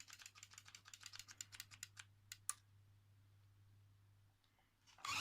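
A quick run of light, small clicks, about eight to ten a second, fading out after about two and a half seconds, from the flip clock's mechanism being handled. A faint steady low hum sits underneath and stops shortly before the end.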